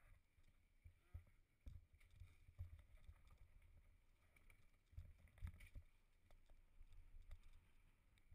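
Faint, irregular low knocks and rattles of a mountain bike riding fast over a rough dirt singletrack and a wooden plank bridge.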